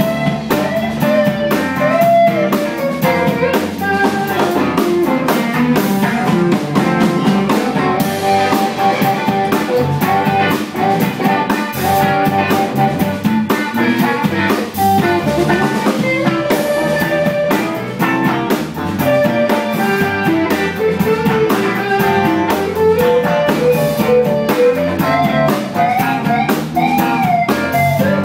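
Live blues band jamming: an electric guitar plays a lead line with bent notes over a steady drum-kit groove and rhythm guitar.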